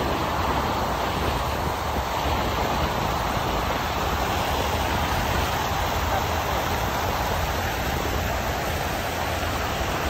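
Fast-flowing Niagara River water rushing past and washing up over a concrete shore ledge: a steady, even rushing noise.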